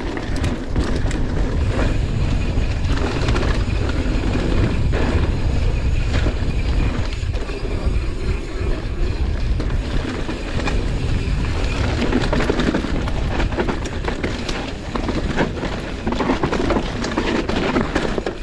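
Mountain bike ridden fast along a dirt singletrack: a continuous low rumble from the tyres and the bike jolting over the rough ground, with many clicks and rattles from the frame, chain and cables.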